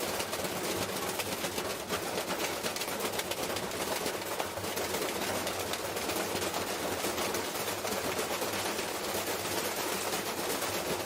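Washing machine spinning with a brick inside its drum: a continuous rapid rattling and banging over a low steady hum.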